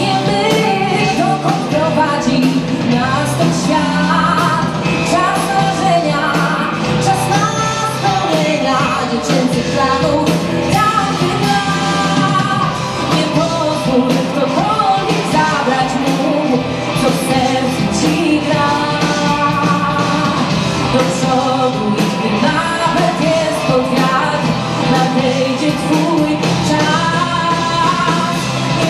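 Live rock band playing: electric guitar over bass guitar and drums, with a woman singing into a microphone in a large hall.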